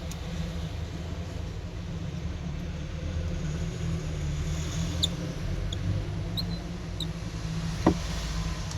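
Faint ticks of small tools on an iPhone 6 being screwed back together, with one sharper click near the end, over a steady low background rumble.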